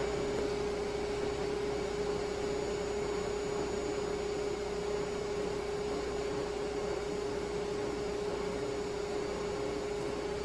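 Shop vacuum running steadily for dust collection, a constant whooshing drone with a steady hum in it.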